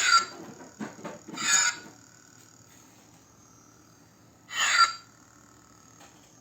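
Toy lightsaber's electronic sound effects through its small built-in speaker: a steady thin hum broken by three short swing sounds, the first and last sliding down in pitch.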